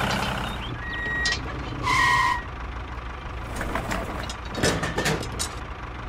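Toy tractor engine sound: a steady low hum that fades after about a second, with two short electronic beeps around the first and second seconds. Near the end comes a cluster of small plastic clicks and knocks as the toy tractor is coupled to its trailer.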